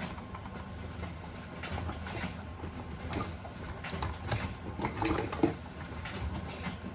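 Computer keyboard typing and clicking at a desk: irregular key clicks, busier and louder in the second half, with one sharper click near the end, over a steady low hum.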